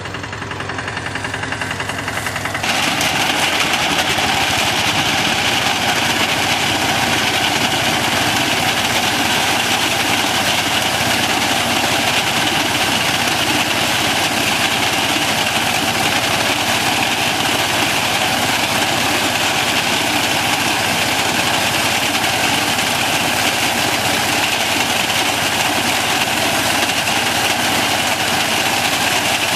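Tractor engine running steadily; about two and a half seconds in it gets louder and noisier, then holds at that level.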